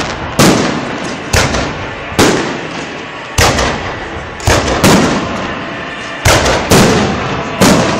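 Aerial firework shells bursting overhead: about nine loud bangs in eight seconds, at uneven intervals, each followed by a rumbling echo that fades away.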